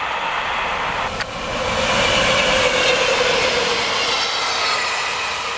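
Freight train rolling past, then after an abrupt cut about a second in, SNCF BB 66400-series diesel locomotives passing close, their engines running over the wheel and rail noise with a steady whine. It grows louder, peaks in the middle and eases off.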